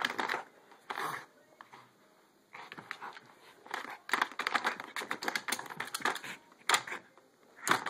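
Rapid plastic clattering and clicking from a cat track toy being pawed by a Boston terrier: the ball rattles around inside the plastic ring as the dog bats at it. A lull about two seconds in, then denser clatter.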